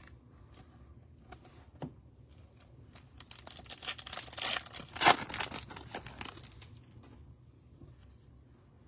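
A trading-card pack's foil wrapper being torn open and crinkled. A few light clicks come first, then a stretch of rustling and tearing, with one sharp rip about five seconds in.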